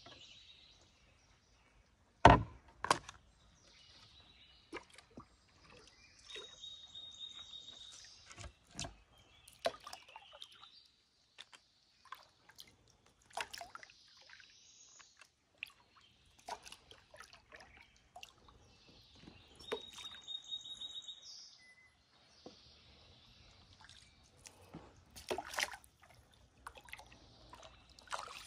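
Canoe paddling: a wooden paddle dipping and sloshing water with drips, and a few sharp knocks of the paddle against the canoe's hull, the loudest about two seconds in. Birds call in the background, with a high trill heard twice.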